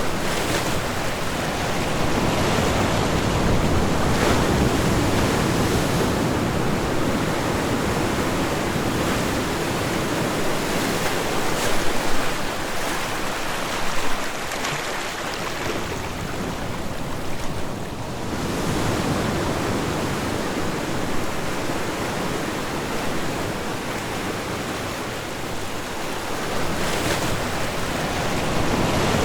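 Ocean waves breaking and washing on a shore in a continuous roar of surf, swelling and easing every few seconds, with a few louder crashes around the middle.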